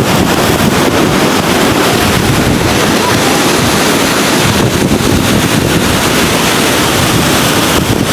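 Wind buffeting the microphone over the steady wash of ocean surf on a rocky shore.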